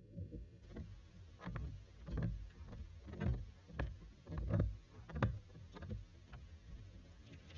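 Water sloshing and splashing in irregular low surges, roughly one or two a second, over a steady low rumble.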